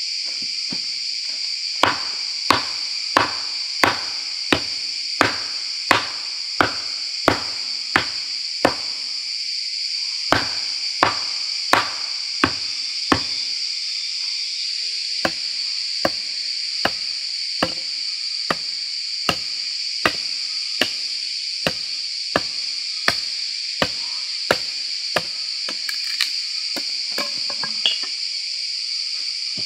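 Steady, rhythmic blows of a tool striking wood, about three every two seconds, with short breaks about a third and about half way through; the later blows are softer. A constant high chorus of insects drones behind.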